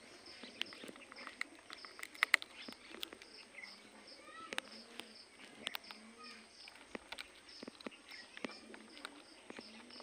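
An Alexandrine parakeet's beak clicks and taps irregularly as it bites and picks at a wooden log, with a few sharper knocks about two seconds in. Behind it a faint, high chirping repeats steadily about three times a second.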